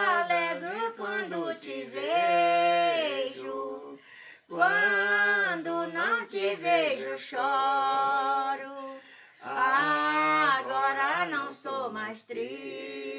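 A woman and a man singing a Portuguese-language folk song together, unaccompanied, her voice leading. They sing three long phrases with held, sliding notes and short breaks between them.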